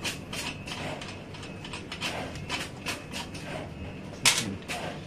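Light metal clicks and clinks as a nut is worked off a threaded terminal stud of a reflow oven heating element, with one louder knock about four seconds in.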